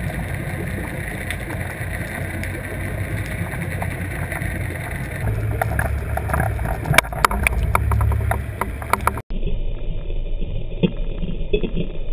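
Steady muffled rush and rumble of water and boat noise while trolling. About halfway through, irregular clicks and knocks join in. Near the end the sound cuts abruptly to a duller recording of the same kind of rumble.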